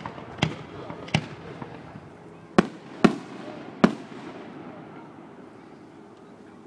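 Fireworks going off: five sharp bangs within the first four seconds, each with a short echo, two of them close together around the three-second mark.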